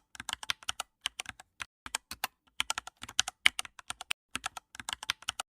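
Computer keyboard typing: a quick, irregular run of key clicks, several a second, that stops just before the end.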